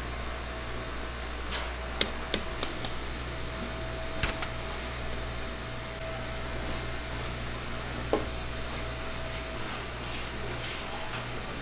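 Metal clanks and knocks as a wire-mesh skimmer scoops fried fish cakes from the fryer and tips them onto a perforated steel draining tray: a quick run of four clanks about two seconds in, a couple more near four seconds and one near eight seconds, over a steady low hum.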